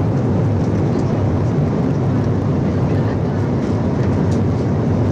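Airliner cabin noise in flight: the steady low rumble and hiss of the jet engines and rushing air.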